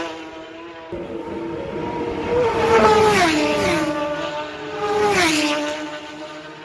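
Two Superbike racing motorcycles pass flat out one after the other, about two seconds apart. Each high engine note drops sharply in pitch as the bike goes by.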